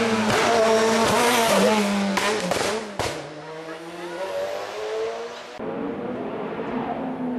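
Race car engine revving hard as it accelerates out of a hairpin, the pitch dropping and climbing again with several quick upshifts. After about three seconds it fades as the car climbs away, and a fainter, distant race engine carries on near the end.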